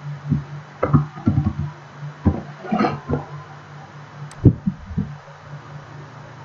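Irregular knocks and taps of typing on a computer keyboard, then a single sharp mouse click about four seconds in, followed by a few more knocks, over a steady low electrical hum.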